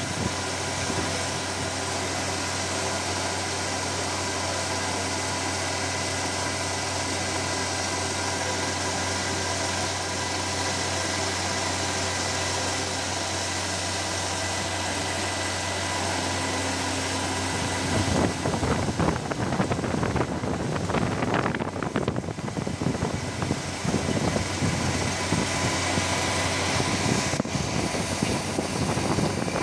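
FANUC CNC milling machine running at low spindle speed, its end mill cutting 7-series aluminium under flood coolant: a steady hum with several fixed tones over a hiss of spraying coolant. About 18 seconds in the sound turns rougher and more uneven.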